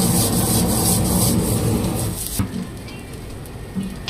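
Diced vegetables being tossed and stirred in a metal frying pan over a gas flame, with a wooden spatula scraping the pan. The noise is loud for about the first two seconds, then drops off to quieter stirring.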